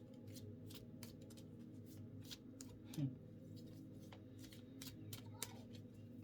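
Oracle cards being shuffled by hand: irregular light snaps and riffles over a low steady hum, with one brief louder sound about three seconds in.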